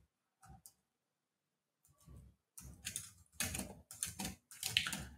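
Typing on a computer keyboard: irregular runs of key clicks, a few about half a second in, then denser from about two seconds in.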